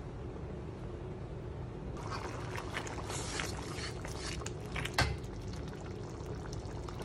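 Blended chilli paste frying in hot oil in a wok, sizzling and crackling as it is stirred with a metal spatula while it cooks down for sambal; the crackling starts about two seconds in, with one sharp knock of the spatula on the pan about five seconds in.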